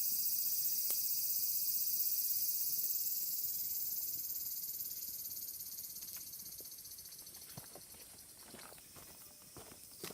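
Tempura frying in hot oil: a high sizzle that starts abruptly and slowly dies away, with a few faint pops.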